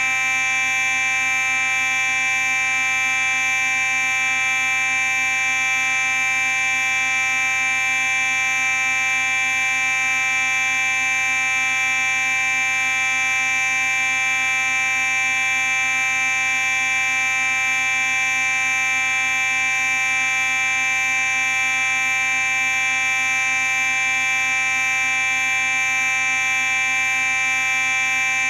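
Simplex 4903-9838 fire alarm sounding a loud, steady, unbroken tone rich in overtones, with no pauses or change in pitch.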